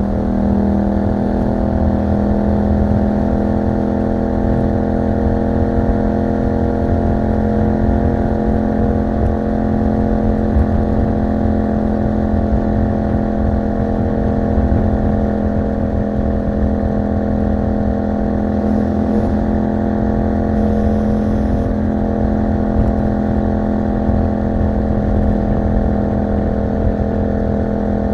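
2021 Yamaha MT-07's 689 cc parallel-twin engine running through an aftermarket Akrapovic exhaust, heard from the bike while riding at a steady, nearly unchanging engine speed, with low wind rumble on the microphone.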